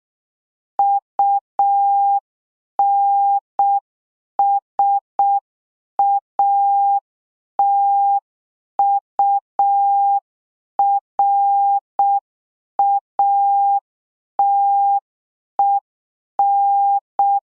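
Morse code practice tone: one steady beep keyed on and off in short dots and longer dashes at an even, slow pace, spelling out U-N-S-A-T-U-R-A-T-E-D.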